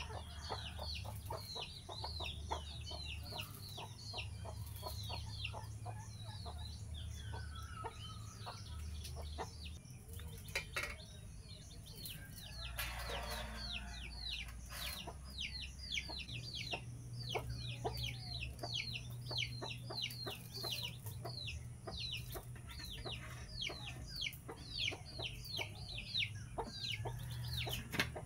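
A chick peeping rapidly with a hen clucking, the peeps a steady string of short, high, falling notes several a second. Scattered light clicks and clinks of metal utensils on aluminium idli plates come in between.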